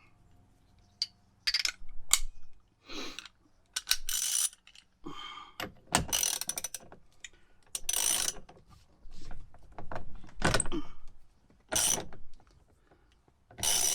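Socket ratchet wrench working a 24 mm socket, its pawl clicking in about a dozen short runs on the back-strokes as a nut is undone.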